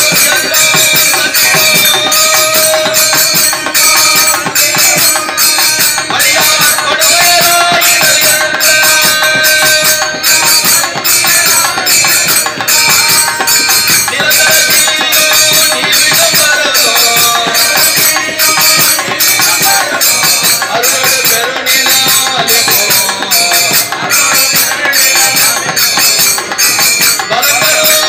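Tamil devotional bhajan: singing with instruments over a steady beat of jingling percussion, like tambourine or hand cymbals.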